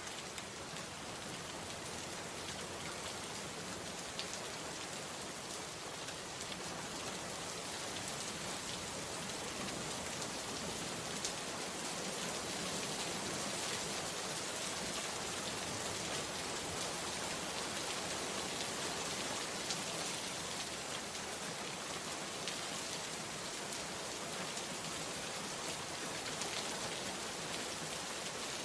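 Steady rain falling: an even hiss with scattered sharp ticks of single drops, swelling slightly about eight seconds in.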